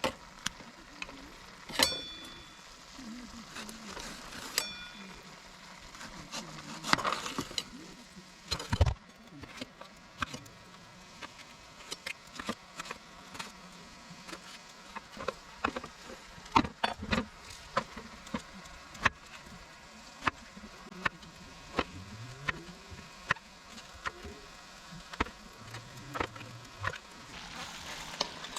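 Wood campfire crackling, with irregular sharp pops and snaps over a steady hiss. At times an insect buzzes by, wavering in pitch.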